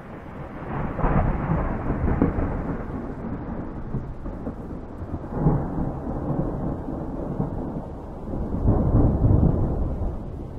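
Rolling thunder over a steady hiss of rain, swelling into three heavier rumbles: about a second in, around five and a half seconds in, and around nine seconds in.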